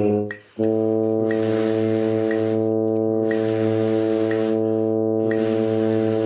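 Steady low drone note from a tuner app, sounding as a reference pitch for brass mouthpiece buzzing practice, with a metronome clicking once a second. Everything cuts out briefly about half a second in, then the drone resumes unchanged.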